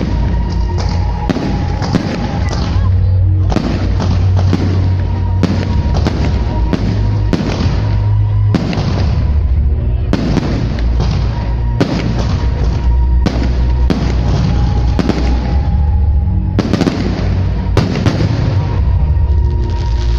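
Fireworks shells bursting in a rapid series of sharp bangs, about one or two a second, over music with a heavy bass.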